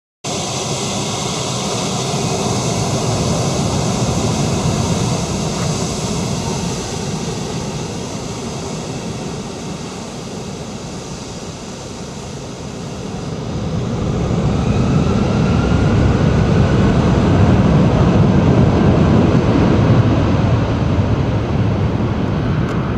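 Boeing 757-200 jetliner's twin jet engines whining at low thrust as it taxis onto the runway. About thirteen seconds in they spool up to takeoff power, with a rising whine and a growing rumble.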